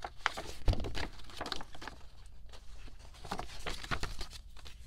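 Paper and packaging rustling and crinkling as the contents of an album set are handled, with a soft knock under a second in.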